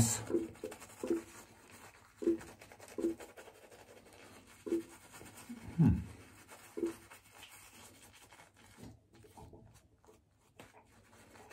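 King C Gillette double-edge safety razor scraping through lathered stubble in a series of short strokes on the third and final shaving pass.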